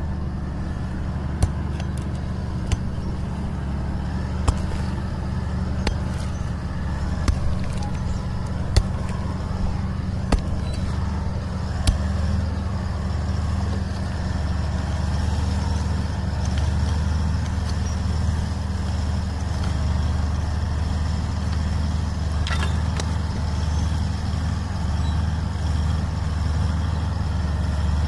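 Bulldozer's diesel engine running steadily as a low drone, with sharp knocks about every one and a half seconds during the first twelve seconds.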